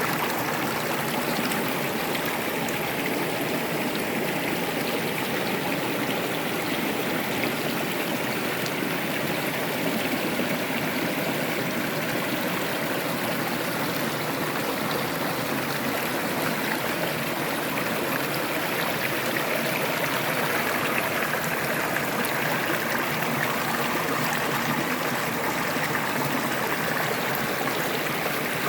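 River water rushing steadily, an even, unbroken wash of water noise.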